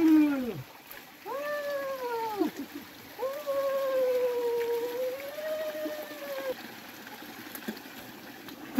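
A slow melody of long sliding notes that swell and fall away, three phrases, the last held about three seconds with a slight wobble, over a faint trickle of water running from a spout.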